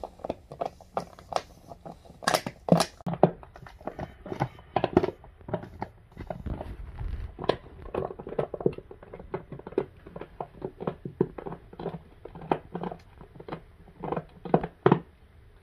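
English bulldog chewing a plastic water bottle: irregular crackling and crunching of the plastic under its teeth, loudest about two to three seconds in and again near the end.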